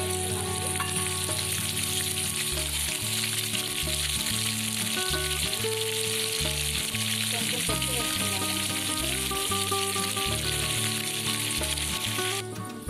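Raw chicken pieces sizzling in hot oil with onions and green chillies in a kadai, stirred with a wooden spatula: a steady frying hiss. The sizzling cuts off just before the end.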